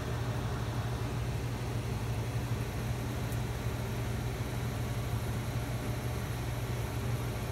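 1962 RCA Whirlpool 8500 BTU window air conditioner running on high cool: a steady rush of air from the blower over a constant low hum.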